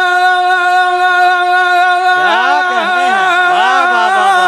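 A man singing a naat through a PA system. He holds one long steady note, then about two seconds in breaks into a run of gliding, wavering notes.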